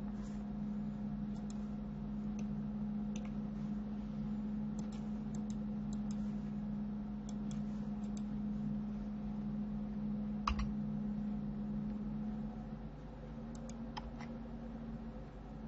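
Scattered clicks of a computer keyboard and mouse over a steady low electrical hum, with a louder click about ten and a half seconds in.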